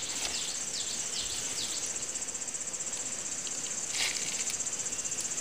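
Steady, high insect drone, a dense pulsing trill, with a few short falling chirps in the first two seconds and a brief crackle about four seconds in.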